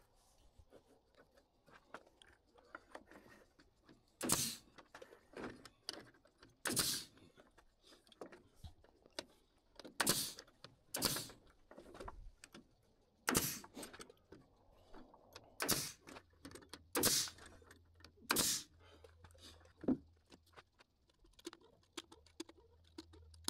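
Pneumatic framing nailer driving nails into wooden sheeting blocks between I-joists: about eight sharp single shots, one to three seconds apart, with quieter clicks and knocks of wood being handled between them.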